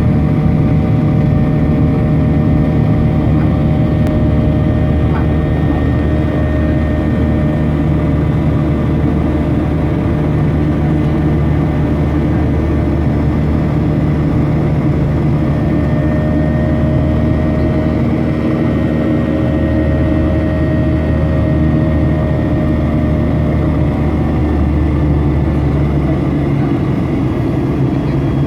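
Jet airliner cabin noise in flight: a steady engine drone and rush of air, with faint steady whining tones above it that drift slightly in pitch midway through.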